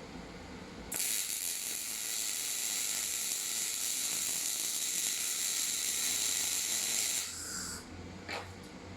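Torros MIG 200 Pulse semi-automatic welder laying a MIG weld: the arc gives a steady hiss that starts about a second in and cuts off sharply about seven seconds in.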